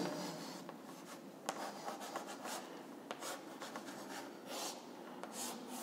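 Chalk drawing on a blackboard: faint, irregular short strokes as resistor zigzags and connecting lines are sketched.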